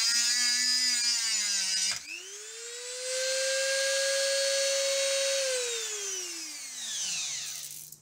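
Handheld 130 W rotary tool cutting into an aluminium housing with a cutting disc: a loud high grinding hiss over the motor's whine, which cuts off abruptly about two seconds in as the disc breaks. The tool then spins up again with no load, runs steadily at a higher pitch, and winds down after being switched off.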